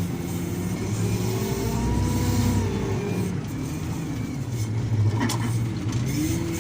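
Diesel engine of heavy earthmoving machinery working, its pitch rising and falling as the revs change under load, with a short knock about five seconds in.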